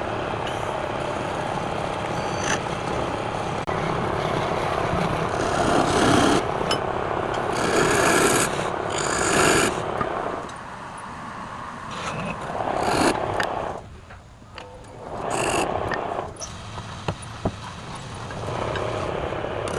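Wood lathe running while a turning tool works the spinning wood, a rough scraping sound in uneven passes that eases off twice in the second half.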